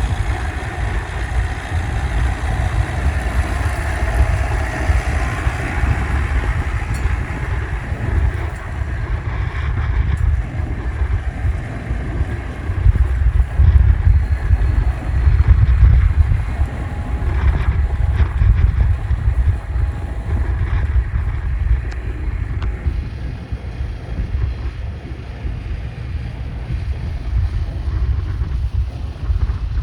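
Wind buffeting the microphone in uneven gusts, over a tractor engine running steadily that grows fainter after about 9 seconds.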